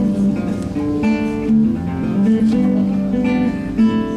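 Acoustic guitar playing a run of plucked and strummed chords.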